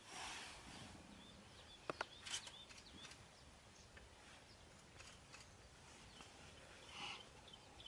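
Near silence: faint outdoor bush ambience, with a brief soft rustle at the start, a couple of sharp clicks about two seconds in, and another soft rustle near the end.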